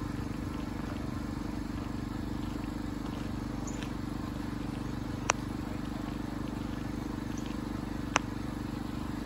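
A small engine running steadily with an even low rumble, with two sharp clicks about five and eight seconds in.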